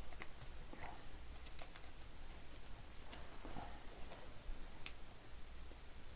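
Faint, scattered light clicks and taps of trading cards being handled and set down, several over a few seconds, over a steady low hum.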